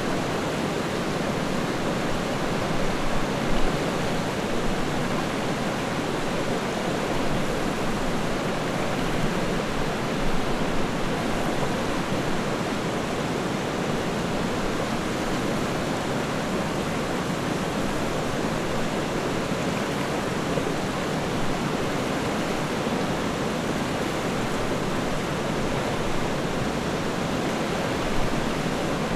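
A river running steadily over rocks, a constant rushing of water with small swells now and then.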